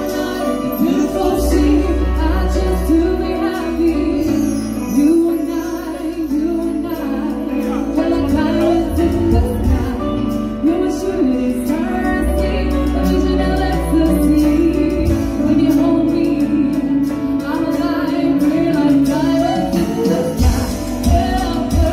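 Live band music through a PA: a woman sings a gliding melody into a microphone over electric guitars, bass, keyboard and drums, with a heavy bass line underneath.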